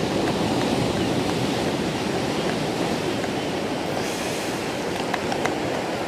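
Steady rush of sea surf washing in as the tide rises, with a few faint ticks.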